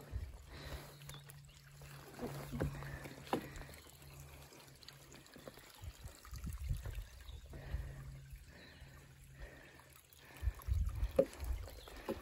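Footsteps on a wooden plank boardwalk and leaf litter, with a faint trickle of water from a small muddy stream below. Low thumps of the steps come in clusters, loudest near the end.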